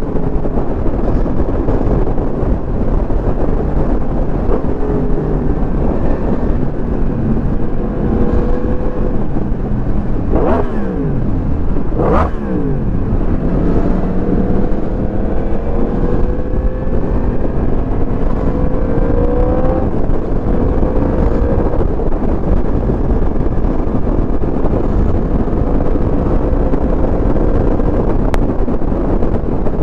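Motorcycle engine running while riding, over a steady low rush of wind noise. The engine pitch climbs and drops back again and again through the gears. About a third of the way in there are two quick, sharp jumps in pitch that fall straight back.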